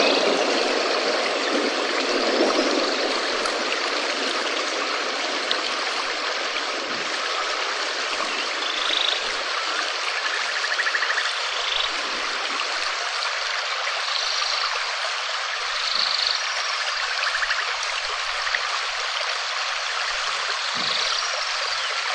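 Steady rain falling, a dense, even hiss, fuller and heavier in the first couple of seconds before settling. A few faint short calls sound now and then above it.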